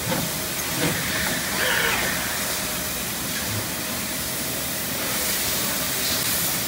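Steady hiss and running noise of an injection-moulding machine and its in-mould-labelling robot, with a faint steady hum. Brief louder hisses come near the start and about two seconds in.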